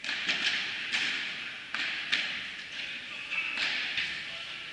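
Padel balls being struck and bouncing on nearby courts: about eight irregular sharp knocks, each echoing through a large indoor hall.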